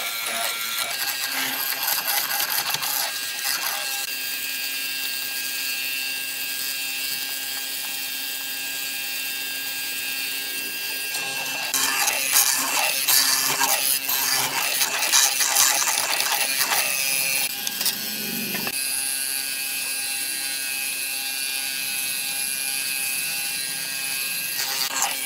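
Hollow-chisel mortiser running with a steady motor hum, its square chisel and inner auger bit boring into a wooden board to cut a mortise. The cutting gets louder and busier from about halfway through for roughly six seconds, then settles back to the machine's hum.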